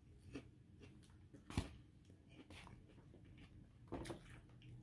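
Quiet eating: a person chewing, with a couple of short clicks of a metal fork in a foam takeout container. The louder click comes about a second and a half in, the other near the end.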